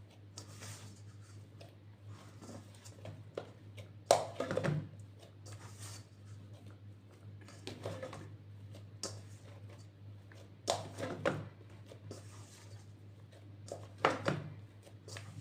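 Hands kneading a soft, sticky bread dough: several separate squishes and slaps of dough against the work surface, the sharpest about four seconds in. A steady low hum runs underneath.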